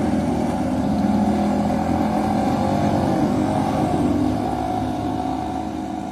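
Small outboard motors pushing jet-ski-style boats, running steadily and growing quieter near the end.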